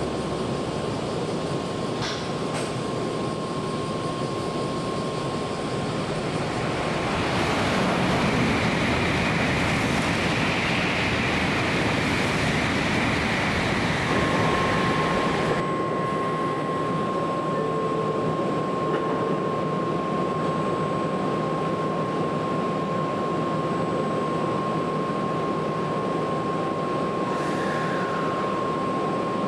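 Tokaido Shinkansen train running through the station, with a steady rolling rumble. It swells into a louder hiss for several seconds in the first half, and a steady high-pitched tone sounds through much of the second half.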